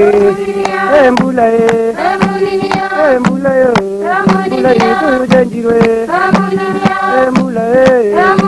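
Background music: a melody that bends in pitch over steady drum strikes.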